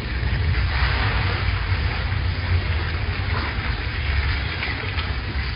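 Water pouring from a pipe into a shallow tank crowded with eels: a steady rushing noise over a low rumble.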